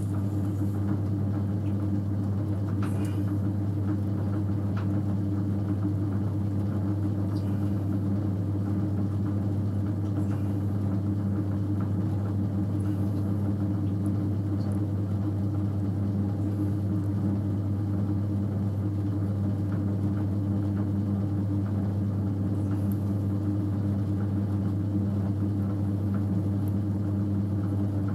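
Electric potter's wheel running at steady speed: a constant low motor hum.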